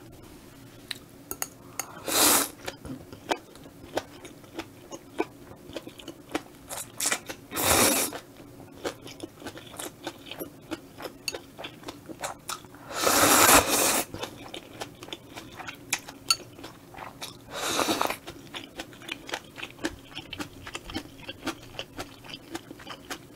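Close-miked eating of spicy stir-fried squid with udon noodles: steady wet chewing and mouth clicks, broken by four loud slurps, the longest about halfway through.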